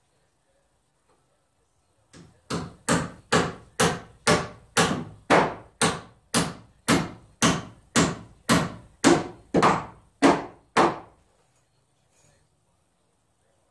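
A hammer striking wood framing in a steady run of about eighteen blows, roughly two a second. The blows start about two seconds in and stop a few seconds before the end.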